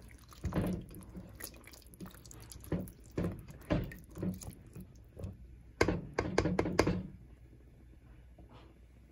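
Wooden spatula stirring diced bottle gourd in coconut milk in a metal pot: irregular wet scrapes and knocks against the pot, with a quick, louder run of them about six seconds in, after which they stop.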